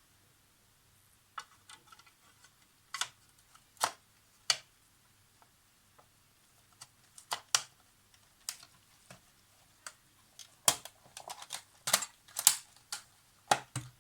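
Scattered clicks and knocks of small hard objects being handled and set down, irregular and sparse at first, busier from about ten seconds in.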